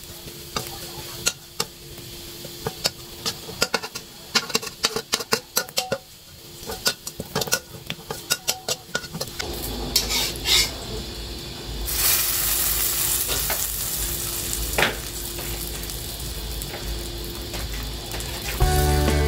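Metal spatula scraping and tapping against a wok as minced garlic fries in oil: a quick run of sharp scrapes and clicks over a sizzle. About ten seconds in this gives way to a steady hiss with a low rumble as a pot of omelet soup bubbles on the stove.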